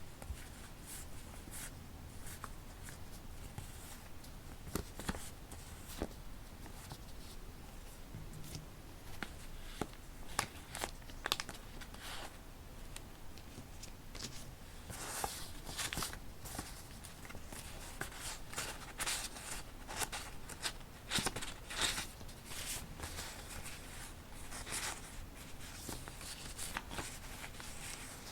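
Sheets of paper being handled close up: rustling, crinkling and sliding, with scattered light taps and clicks, busiest in the middle stretch.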